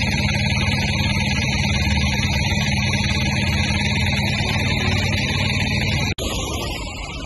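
Vehicles driving through deep flood water, a steady drone of engines under the wash of tyres through water. The sound cuts off abruptly about six seconds in and comes back quieter.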